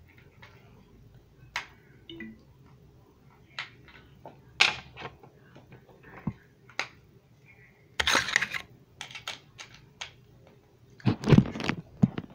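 Handling noise from a handheld camera: scattered small clicks and taps, with a louder rustling scrape about eight seconds in and another just before the end.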